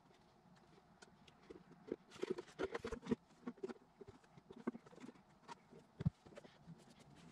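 Handling noise from a speaker cabinet being worked on and turned by hand: scattered knocks, clicks and rustles, busiest a couple of seconds in, with one heavier low thump about six seconds in as the cabinet is set down on a towel.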